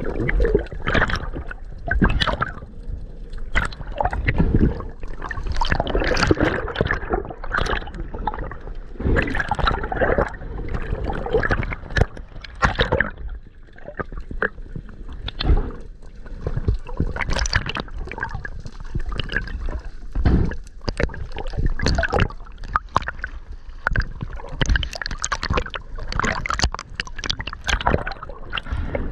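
Water gurgling and sloshing around a diving camera, with many irregular short knocks and bubbling bursts.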